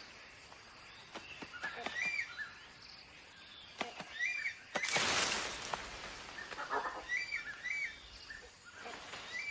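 Forest ambience: a bird repeats a short, arched chirping call several times, with a brief rushing noise about five seconds in.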